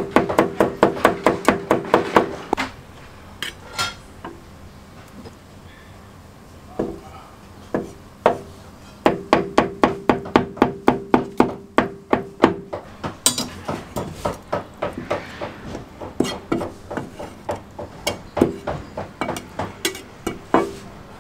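Cleaver chopping on a thick wooden chopping block: fast runs of about five chops a second at the start and again around the middle, a few single chops in between, then slower, spaced chops toward the end. A low ring carries between the strokes during the fast runs.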